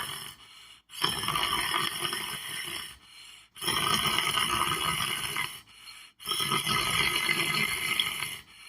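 A person snoring in a regular rhythm: three long, noisy breaths of about two seconds each, with short pauses between them.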